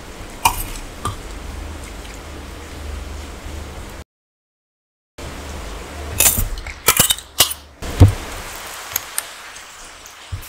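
Stainless steel spoon and bowls clinking and scraping as curry is served, with a cluster of clinks after a brief dropout and one heavier knock, like a steel bowl set down on the table, about eight seconds in.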